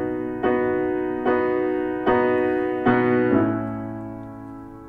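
Solo piano playing the song's intro: about five chords struck roughly a second apart, the last one held and left to fade out.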